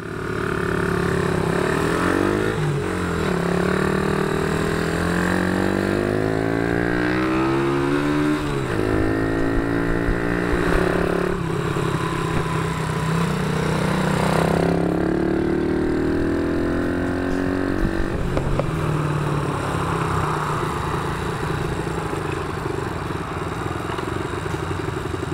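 Skyteam Bongo 125cc motorbike engine pulling through the gears, its note rising and then dropping back at each gear change several times, then running at a steadier, lower note for the last several seconds.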